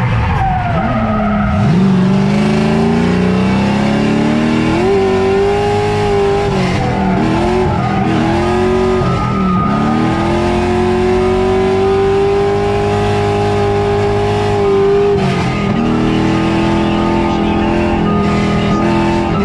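LS V8-swapped Nissan 240SX (S14) drift car driven hard, with tyres squealing through the drift. The engine revs fall, climb and dip repeatedly, and are held high and steady for several seconds at a time.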